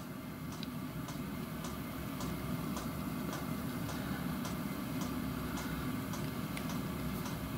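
Workshop background: a steady low hum with faint, evenly spaced ticks, a little under two a second.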